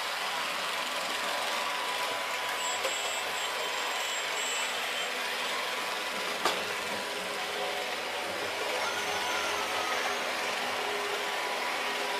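Model railway train running on Märklin C-track with LUX track-cleaning cars (8810 track vacuum, 9010 track grinder) in action: a steady whirring hiss from their motors, with a single sharp click about halfway through.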